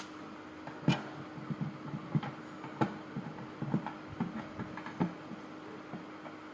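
Scattered sharp clicks and knocks at an irregular pace, the loudest about a second in and again near three seconds, over a faint steady hum.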